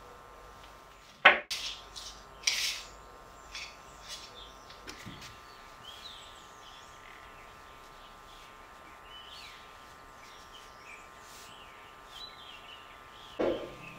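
A sharp knock about a second in, followed by a few lighter clicks and taps. Faint bird chirps come through in the background over the second half, with a faint steady whine underneath and another knock near the end.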